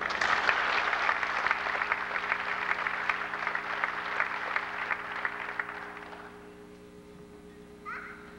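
Audience applauding, starting at once and dying away after about six seconds. A steady low hum runs underneath, and a brief high-pitched sound comes near the end.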